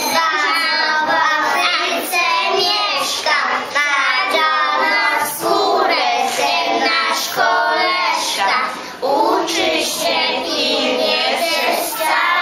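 A group of young children singing together in unison, with a woman's voice singing along.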